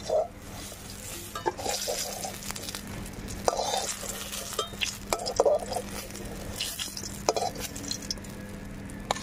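Metal spatula scraping and knocking against a steel wok as fried eggplant slices are lifted out of sizzling mustard oil, with a few separate knocks about two seconds apart over a steady frying hiss.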